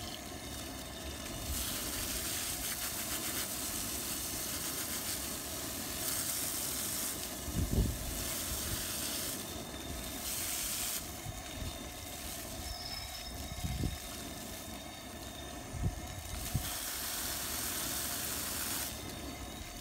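Garden-hose water spraying hard against a boar's skull bone, a hissing spray that swells and drops several times as the bone is turned in and out of the stream to flush debris out of its holes and teeth. A few short low thumps come through, the loudest about eight seconds in.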